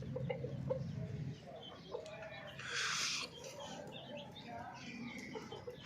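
Chickens clucking, a scatter of short clucks, with a brief hiss-like burst about three seconds in.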